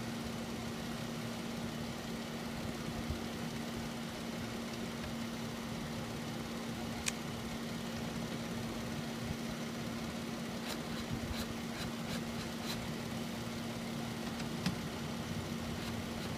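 Car engine idling with a steady low hum, with a few light clicks from parts being handled about seven seconds in and again a few seconds later.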